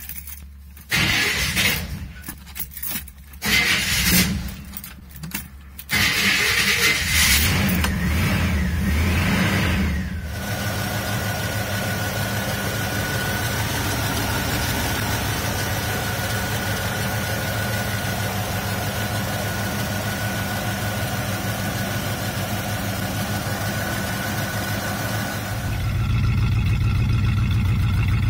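1973 Buick Regal's 350 V8 with a four-barrel carburettor being cold-started after sitting for months: it turns over in several short stretches, catches about six seconds in, revs up and down, then settles into a steady idle with a thin whine over it. Near the end the idle is heard from the exhaust at the rear, deeper and louder.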